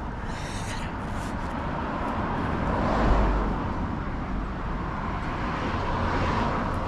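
Road traffic: cars passing, with the nearest one going by about three seconds in and another swelling up near the end.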